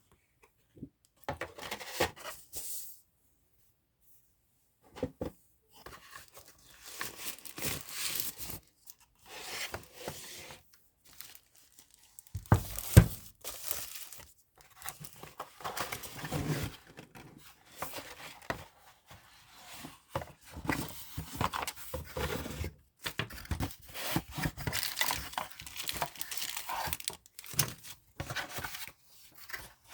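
Keyboard packaging being unwrapped: irregular tearing and crinkling of wrapping and handling of the box, with a sharp knock about 13 seconds in.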